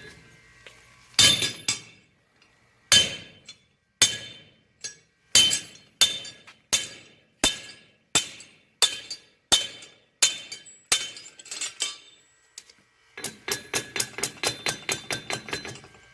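Blacksmith's hammer striking hot iron on an anvil, each blow a sharp ringing clang, spaced about a second apart. After a short pause near the end, a quick run of blows follows, several a second.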